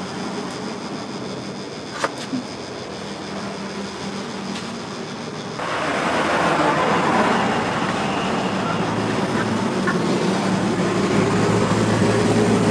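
A motor-driven workshop machine running steadily. About halfway through, a louder rough grinding noise starts suddenly and carries on.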